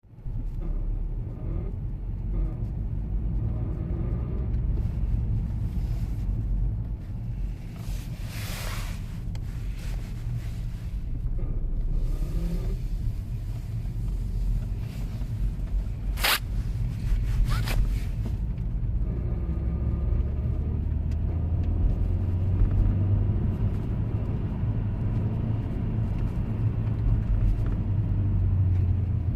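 Audi A4 B6 driving under light-to-moderate part-throttle acceleration, with a steady low rumble and grinding noise from the drivetrain. A sharp click cuts through about 16 seconds in.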